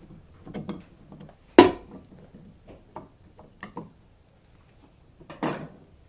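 Screwdriver and cover-plate handling at a wall outlet: light clicks and ticks as the center screw is backed out and the cover plate is taken off, with one sharp click about a second and a half in and a brief scuffing noise near the end.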